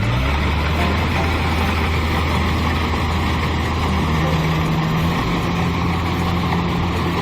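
Kubota DC-70 combine harvester's diesel engine running steadily with machinery noise, its low drone shifting just after the start and a higher hum joining about halfway through.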